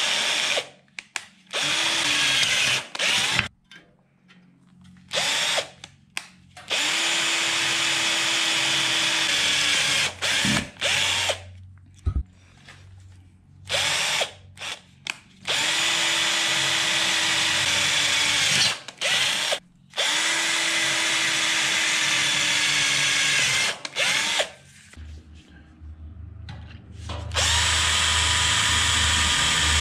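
Electric drill with a 1/8 inch bit boring pilot holes through sheet-metal rocker panel patch, the first of two sizes for plug-weld holes. It runs in repeated bursts of one to four seconds with short pauses between holes, its pitch winding down as each run stops.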